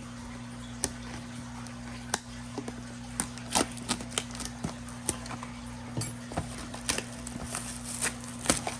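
Cardboard and plastic packaging of a trading-card mega box being opened and the packs handled: a run of irregular crackles and sharp clicks over a steady low hum.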